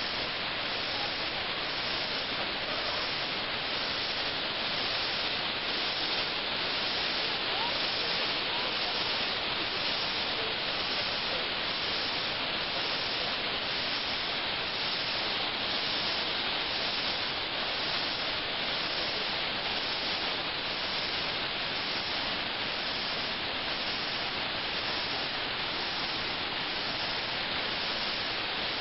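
The Huanano waterfall pouring into its plunge pool: a steady, even rush of falling water with no let-up.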